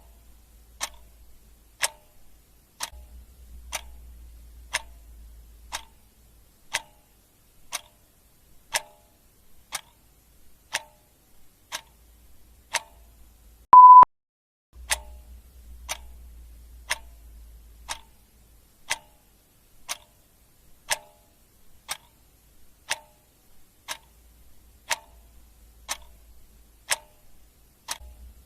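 Clock ticking steadily, about once a second. About halfway through, a single short, loud beep at one steady pitch cuts in.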